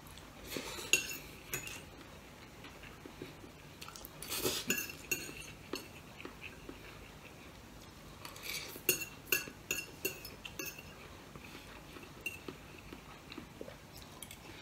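Metal fork clinking and scraping against a plate while eating, in three bunches of sharp clicks, some with a short ring, with quieter stretches between.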